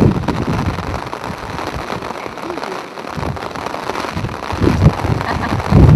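Steady wash of falling rain, with irregular gusts of wind rumbling on the microphone.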